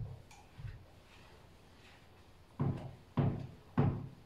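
Dull knocks of a long-handled cleaning tool striking the floor as it works along the sofa base: one at the start, then three evenly spaced knocks about half a second apart in the second half.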